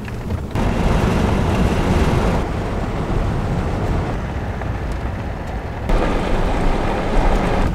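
Toyota Sequoia SUV driving on a dirt road: tyre and road noise with wind rumbling on the microphone. It gets louder suddenly about half a second in, dips, then rises again near six seconds.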